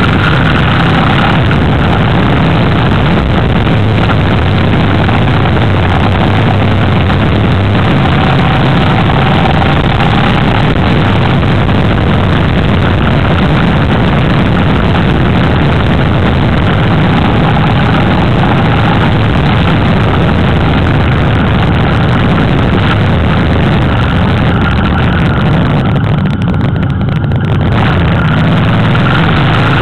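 Motorcycle riding at speed: heavy wind rush over the microphone, with the engine running underneath. The rush briefly eases near the end.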